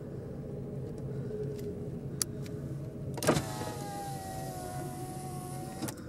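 A car's electric power window motor whines steadily for about two and a half seconds, starting a little past halfway with a clunk and stopping with another, over the low hum of the idling car.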